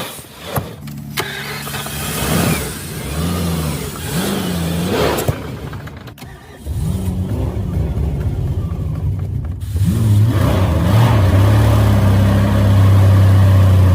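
BMW V12 engine firing and running unevenly on brake cleaner sprayed in as a starting aid. It falters about six seconds in, catches again, and runs louder and steadier from about ten seconds.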